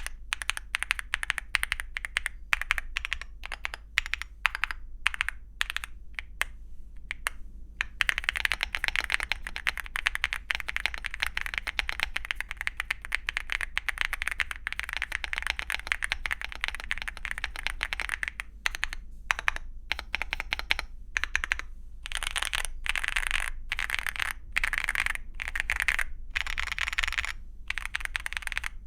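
Typing on a Leobog Hi8 mechanical keyboard with Leobog Reaper linear switches and XDA-profile PBT keycaps. Separate keystrokes come first, then fast continuous typing from about eight seconds in. A few single presses follow, and fast typing comes again near the end.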